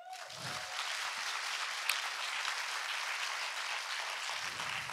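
Audience clapping steadily, a dense even patter of many hands.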